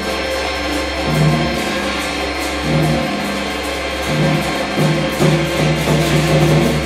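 Chinese traditional orchestra playing a loud full passage, with drums and gongs keeping a fast, even beat over sustained low notes.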